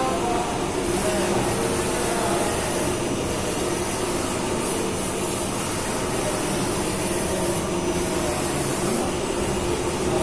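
CNC turning lathe running: a steady machine hum with a few held tones that shift a little in pitch.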